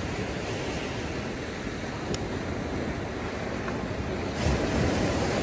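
Steady rushing noise of the sea washing onto the beach, growing a little louder about four and a half seconds in.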